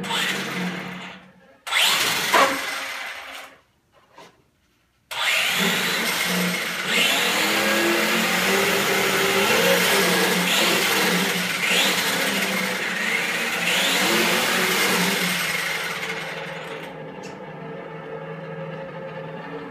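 Traxxas Slash 4x4 RC truck revving with its wheels spinning in the air: the electric drivetrain whirs while the onboard audio speaker plays a simulated engine sound. After a couple of short bursts and a brief silence, it revs up repeatedly in rising sweeps, then settles to a quieter steady idle near the end.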